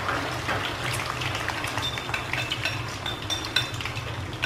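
Beaten duck egg sizzling as it hits hot oil in a nonstick frying pan, with chopsticks tapping and scraping on the pan in quick, irregular clicks as the egg is spread out.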